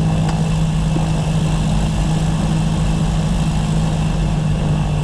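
Cessna 340's twin turbocharged six-cylinder piston engines idling steadily in the cockpit after landing, left running for a cool-down before shutdown.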